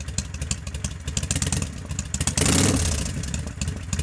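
1995 Kawasaki Vulcan 800's 805 cc V-twin engine idling with a fast, uneven exhaust beat. It is briefly revved about two and a half seconds in, then drops back toward idle.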